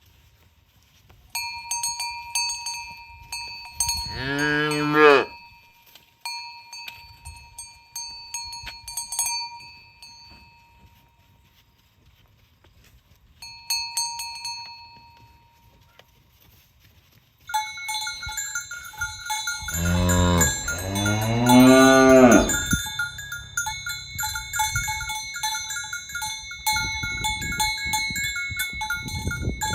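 Cowbells clanking in uneven bursts as cattle are herded, with a second, different-pitched bell starting a little past halfway and clanking steadily from then on. A cow moos once about four seconds in, and gives a longer moo around two-thirds through.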